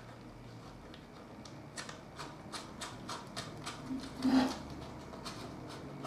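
Scattered light clicks and rustles of hands working an airbrush hose fitting onto a mini air compressor, with one louder knock about four seconds in.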